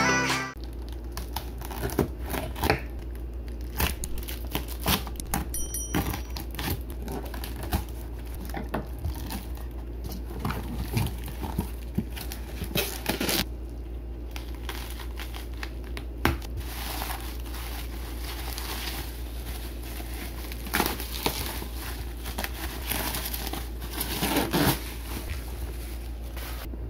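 Plastic bubble wrap being cut and pulled off a box, crinkling and tearing in irregular crackles and clicks, over a steady low hum.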